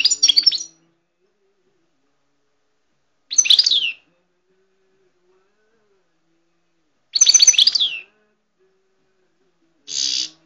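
Caged finch singing short bursts of high, quick twittering song, a phrase about every three and a half seconds, with a shorter harsh buzzy note near the end.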